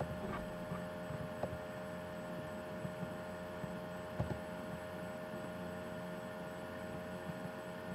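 Steady electrical mains hum on the recording, with a few faint short clicks, the clearest about four seconds in.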